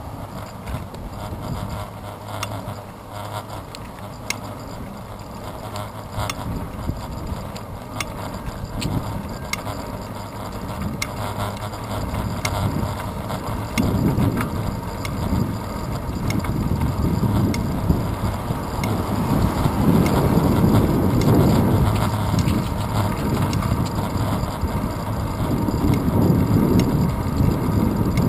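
Bicycle rolling along a paved street: wind noise on the microphone and tyre noise on the road, growing louder from about halfway through. Scattered light clicks and rattles from the bike come in the first half.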